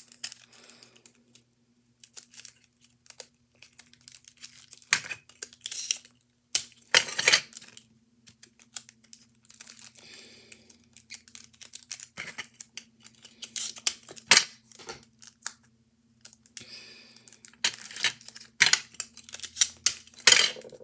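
Sticky tape being pulled off the roll in short rips and wrapped around a crumpled paper ball, with the paper crinkling; irregular bursts throughout, over a faint steady hum.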